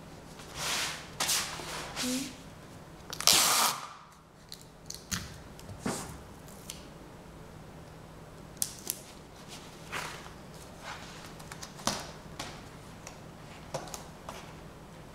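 Adhesive tape and paper being handled while assembling a portfolio: a few short rustling, ripping bursts in the first seconds, the loudest lasting about half a second just past three seconds in, then scattered sharp clicks and taps.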